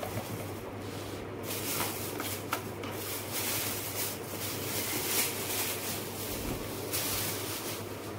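Thin plastic bag crinkling and rustling as a pressure washer is pulled out of its wrapping, in a continuous run of small crackles.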